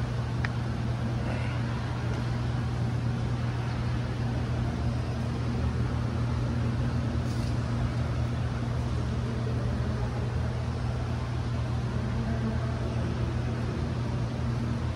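Steady low machine hum with an even rushing noise over it, unchanging throughout.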